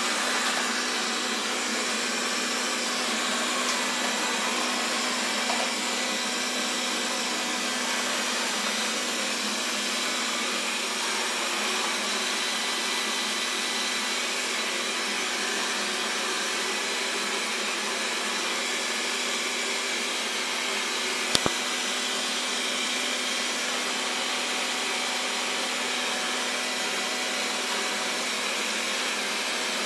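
Xiaomi Mi Robot Vacuum (Mijia) running steadily, a constant motor and fan hum with a steady whine, with a single sharp knock about two-thirds of the way through.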